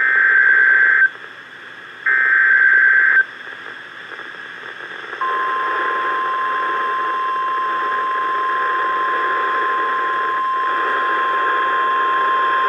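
NOAA Weather Radio emergency alert: two bursts of SAME digital header data, each a harsh warbling screech about a second long and a second apart. About five seconds in, the steady 1050 Hz weather-radio attention tone starts and holds over radio hiss. It signals the start of a new severe thunderstorm warning.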